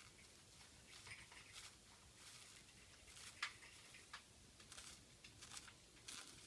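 Faint, irregular scratching and rustling of a sulphur-crested cockatoo working a popsicle stick against its feathers, a series of short dry scrapes with one sharper click about three and a half seconds in.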